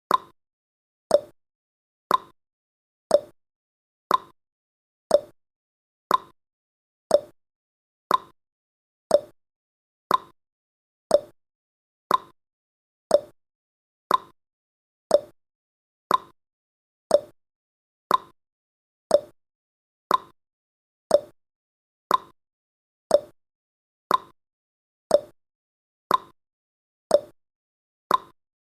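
Countdown timer's ticking sound effect: short, sharp clock-like ticks, one each second, evenly spaced.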